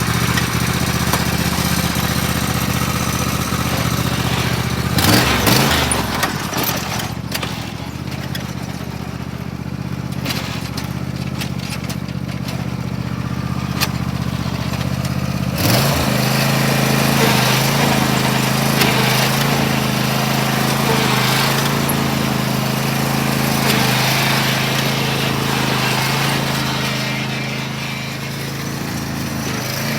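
Small petrol engine running steadily just after being started. It is briefly revved about five seconds in, then throttled up to a higher, steady speed about sixteen seconds in.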